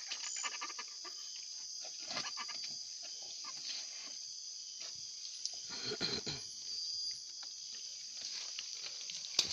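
Steady high-pitched chorus of night insects, with scattered small clicks and rustles of handling, and a short lower pitched sound about six seconds in.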